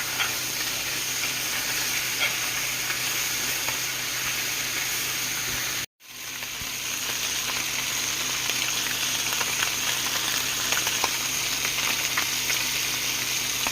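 Catfish sizzling steadily as it fries in butter in a pan, with a few faint utensil clicks as it is moved around. The sound cuts out completely for a moment about six seconds in, then comes back.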